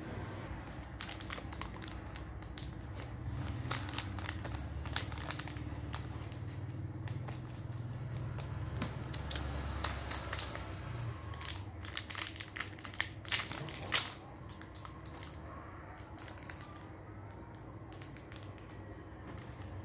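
Eating sounds: irregular crunching and crinkling close to the microphone, loudest in a quick cluster about thirteen to fourteen seconds in.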